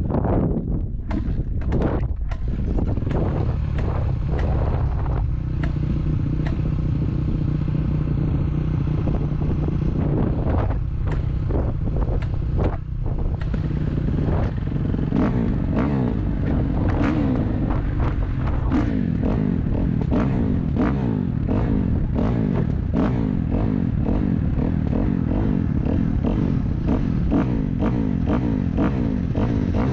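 A small vehicle engine running steadily, with scattered short clicks and rattles over it.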